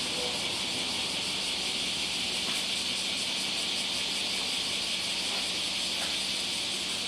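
A steady high-pitched hissing drone, with a faint low hum underneath.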